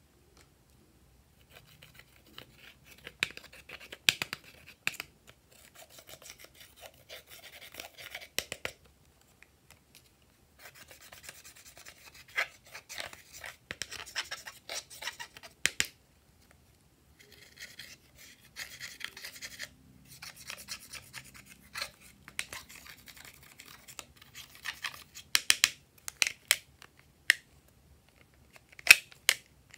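Glossy slime being worked by hand: sticky crackling with sharp clicks, in bursts, with short pauses about ten and sixteen seconds in.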